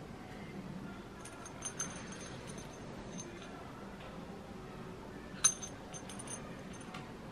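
Small metal hand tools and parts being handled on a wooden table: light metallic clicks and taps, with one sharper, ringing clink about five and a half seconds in.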